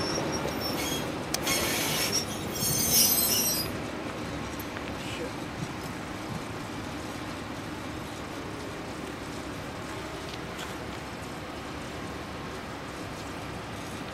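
GE 44-ton diesel switcher locomotive running as it rolls slowly along the track. High-pitched wheel squeal comes through in the first few seconds, then a steady engine and rolling sound.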